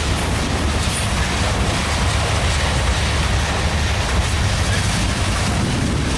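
Union Pacific freight train's loaded centerbeam flatcars rolling past, a steady, loud rumble of wheels on rail.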